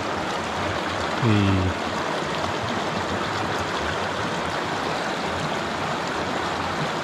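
Shallow mountain stream flowing steadily over rocks and gravel.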